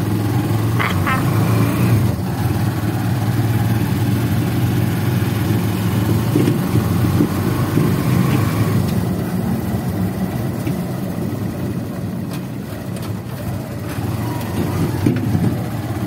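Steady low rumble of a running vehicle engine.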